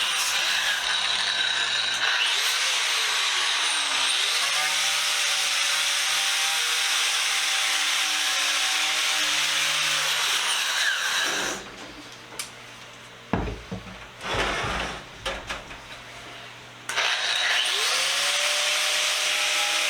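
Wire brush on a power tool scraping flaking paint off a metal tool box, a loud harsh scrub over a whining motor. About two-thirds through, the tool stops and a few knocks follow; near the end the motor spins up again and the brushing resumes.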